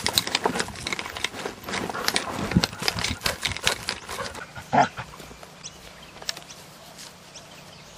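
A dog moving close to the microphone: a dense run of scuffling, rustling noises for about five seconds, with one short bark near the end of that run, then only a few faint ticks.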